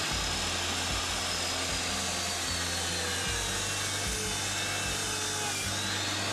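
DeWalt compound miter saw running steadily while its blade cuts through wood.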